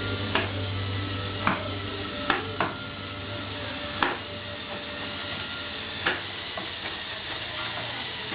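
A handful of sharp clicks and knocks at irregular intervals over a steady low hum.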